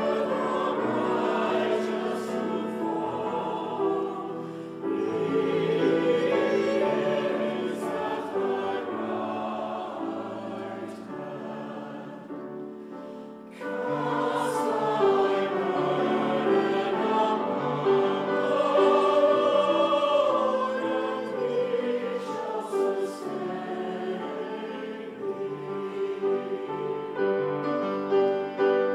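Mixed church choir of men's and women's voices singing a sacred anthem. The singing eases to a quiet passage about twelve seconds in, then comes back in strongly.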